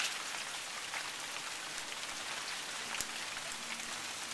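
Steady rain falling, an even hiss with scattered sharper drop ticks, over water running in a small runoff stream.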